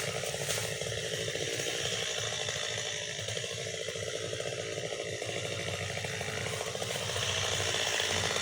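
Stihl MS 230 chainsaw's two-stroke engine running steadily, growing somewhat louder near the end.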